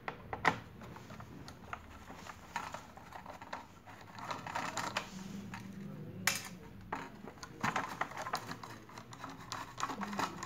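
Small clicks, taps and scrapes of a screwdriver and hands working on a sandwich maker's metal heating plate and plastic housing, with a sharper knock about half a second in and another about six seconds in.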